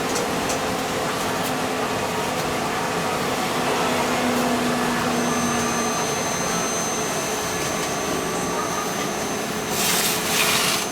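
Steady running noise inside a moving trolleybus, with a faint electric motor whine over the rumble. A short sharp hiss comes near the end.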